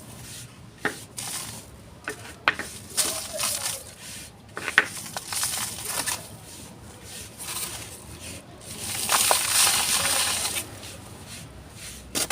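Hand-crumbled chunks of dry cement crunching and snapping: irregular sharp cracks mixed with gritty crumbling, with the loudest snaps a few seconds in and a longer stretch of grinding crumble later on.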